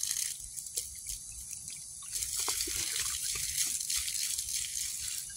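Water pouring out of a steel retort's threaded pipe fitting and splashing onto grass as the reactor is flushed clean of residue.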